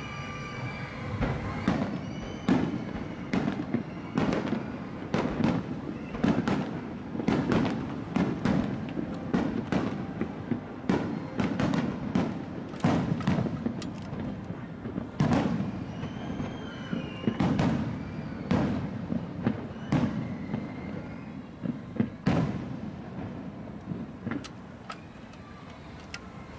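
Fireworks display going off in a rapid run of booming bursts, roughly one to two a second, over a continuous low rumble of echoing reports. The bursts thin out near the end.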